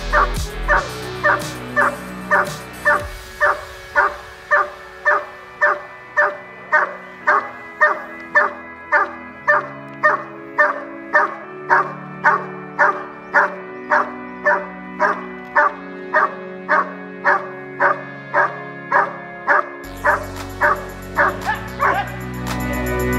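Dog barking steadily at the helper in the blind: the hold-and-bark of IGP protection work, about two sharp barks a second. Background music runs underneath and grows louder and fuller near the end.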